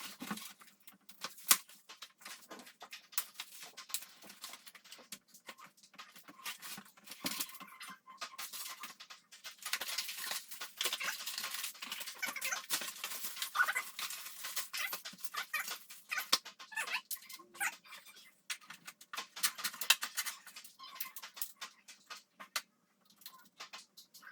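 Clicks, knocks and rustling from handling bike parts and their packaging during assembly, with a denser stretch of rustling in the middle.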